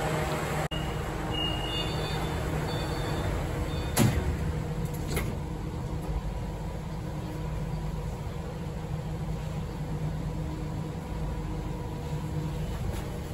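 Steady rumble and hum of a subway train heard from inside the car, with a sharp clunk about four seconds in and a lighter one about a second later.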